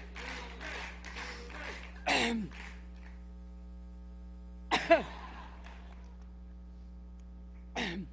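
A woman coughing: three short hoarse coughs, about two, five and eight seconds in, the middle one the loudest, over a steady electrical hum. Audience applause fills the first two seconds.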